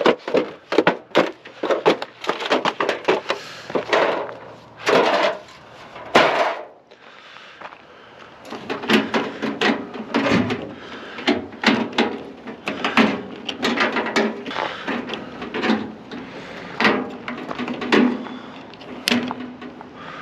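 Metal parts of a microwave oven being handled and taken apart: irregular knocks, clicks and clatter, busier and more rattly in the second half.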